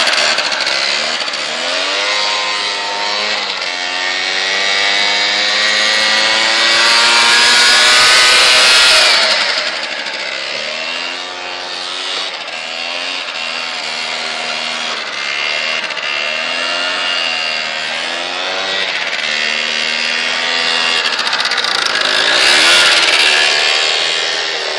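Piaggio Typhoon scooter's two-stroke engine revving up and down as it is ridden hard: a long climb to a loud high rev that drops off sharply about nine seconds in, then wavering revs, and another surge near the end.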